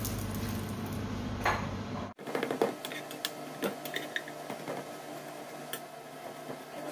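A steady low hum that cuts off abruptly about two seconds in, then a metal spatula and a wooden spoon clicking, tapping and scraping against a nonstick frying pan as burger buns are moved and turned in it, in a string of light irregular knocks.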